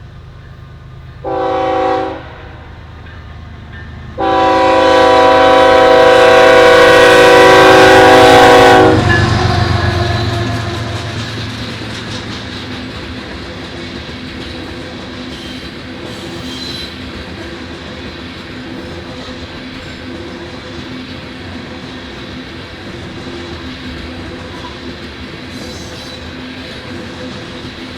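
Kansas City Southern locomotive's air horn sounding a short blast and then a long, loud blast, followed by the diesel locomotive's engine passing close by and the ethanol tank cars rolling past with a steady clickety-clack and faint wheel squeals.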